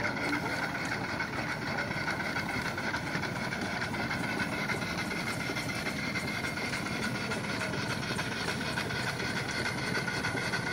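A 1900s vertical steam launch engine running steadily, a fast even beat that holds the same speed throughout.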